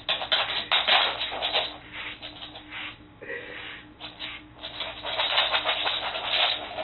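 A handheld grooming brush stroked quickly and repeatedly through a dog's short coat: a run of short, scratchy brushing strokes, with a brief lull around the middle.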